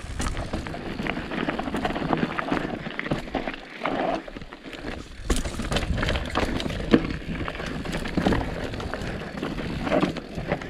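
Mountain bike riding down a rough dirt-and-cinder trail: tyres crunching over the surface, with frequent clacks and rattles from the bike and a low rumble of wind on the microphone.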